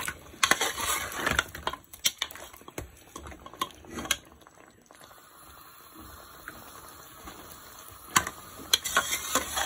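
Steel ladle stirring meat pieces in a steel cooking pot, clinking and scraping against the pot's sides and bottom, over a faint steady sizzle of the meat frying in oil. The clinks thin out in the middle and pick up again near the end.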